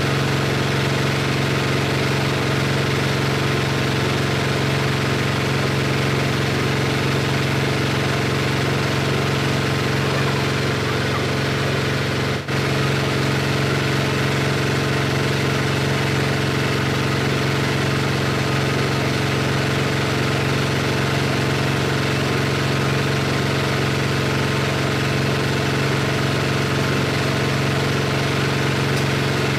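Motor-driven meat grinding machine running steadily while meat is fed into it: a constant low mechanical hum.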